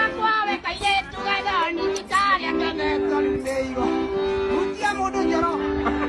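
Music: a song with a singing voice over held low chords that break off and start again about every second.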